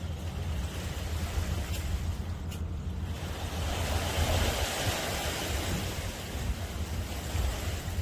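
Sea waves washing, with one wave swelling up about three seconds in and dying away a few seconds later, over a steady low rumble of wind on the microphone.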